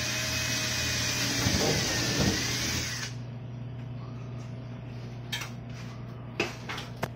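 Cordless drill boring into the edge of wooden wall panelling, its motor whine wavering in pitch for about three seconds before it stops. A few light knocks follow.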